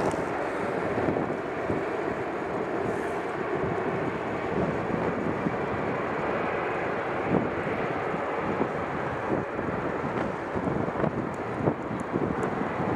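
Jet engines of an Airbus A330-243 (Rolls-Royce Trent 700s) as the airliner comes in to land and touches down, a steady rushing sound. Wind buffets the microphone in short irregular thumps.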